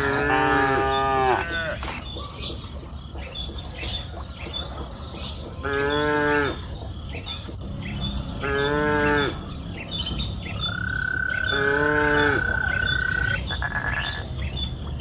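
Cows mooing on open pasture: four separate moos, each about a second long, at the start, around six seconds, around nine seconds and around twelve seconds in.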